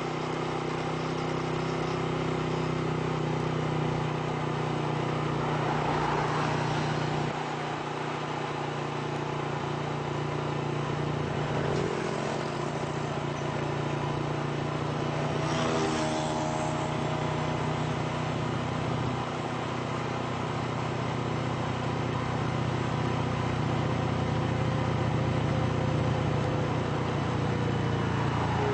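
Steady hum of a vehicle's engine and road noise while driving. Other vehicles pass, their engine notes falling in pitch as they go by about 12 and 16 seconds in.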